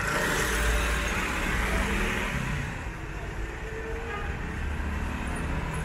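Cars driving slowly past close by on a paved street. The engine rumble and tyre noise are loudest in the first two seconds as the nearest car goes by, then ease off, and another car's low rumble follows near the end.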